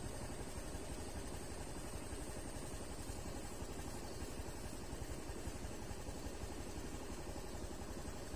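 Steady low rumble of an idling small engine, even throughout, with a thin steady high-pitched tone above it.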